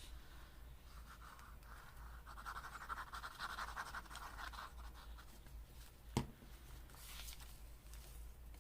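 Faint, steady crackle of washi tape being peeled off its roll for about four seconds, then a single sharp click about six seconds in.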